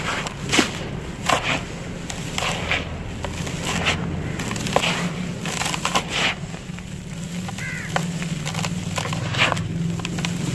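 Dry, gritty cement crumbling and crunching as hands squeeze and break up clumps of it in a plastic tub, in irregular crisp crunches.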